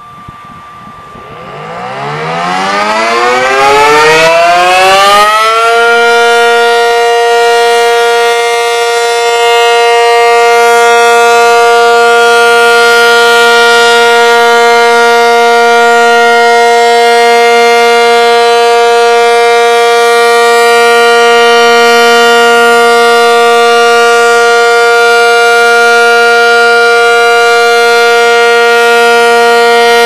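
ACA Cyclone 125 outdoor warning siren winding up, its pitch rising for about five seconds, then holding a steady tone at full speed: a scheduled siren test.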